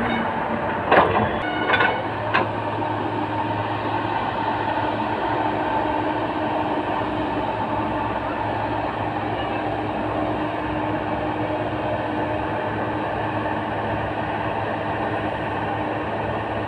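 L&T Komatsu hydraulic excavator's diesel engine running steadily as it digs and swings a load of soil, with a few sharp knocks about a second in.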